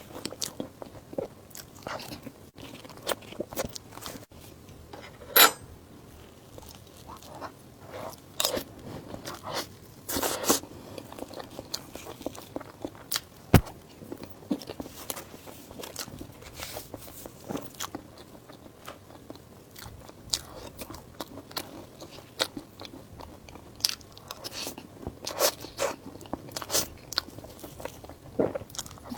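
Close-miked eating sounds: a person biting and chewing, with many irregular crunches and wet clicks. The loudest bites come about five seconds in and again past the middle.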